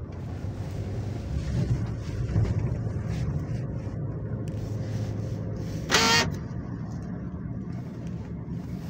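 Car engine and road noise heard from inside the cabin while driving, a steady low rumble. About six seconds in, a short, loud higher-pitched blip cuts through for a moment.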